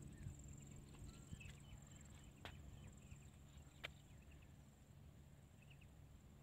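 Faint outdoor ambience: a steady high-pitched insect trill, scattered faint bird chirps, and two sharp clicks a little over a second apart in the middle.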